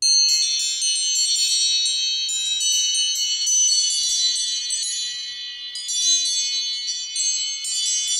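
An iPhone ringtone: a busy cascade of high, bell-like chime notes that starts suddenly and keeps ringing, with fresh flurries of notes about six and eight seconds in.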